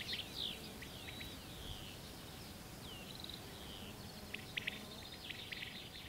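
Faint wild birdsong: scattered high chirps and short gliding whistles, with a quick run of short notes about four and a half seconds in, over a low, steady outdoor hiss.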